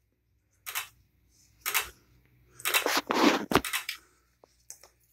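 Several short rustling noises, the longest and loudest about three seconds in, then a few faint clicks near the end.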